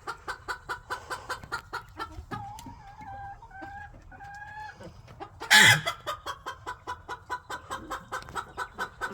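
Domestic hen clucking in a fast, even run of about five clucks a second, broken by three drawn-out calls and one loud squawk a little past halfway.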